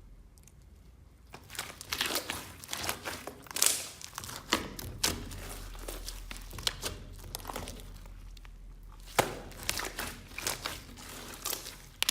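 Clear slime with beads mixed in, squeezed and worked by hand, giving a dense run of irregular crackling clicks that starts about a second in.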